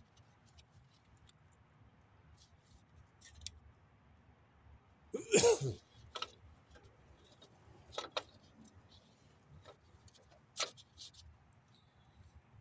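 Hand tools working on a car engine: scattered metal clicks and clinks of a pry tool and parts, with one louder, longer scrape about five seconds in and sharp clicks near eight and ten seconds in.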